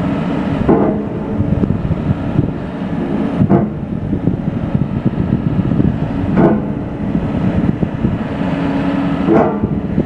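John Deere 437E knuckleboom log loader's diesel engine running under hydraulic load, its note shifting as the boom and grapple work the top of a log load. Four short, sharper sounds come through about three seconds apart.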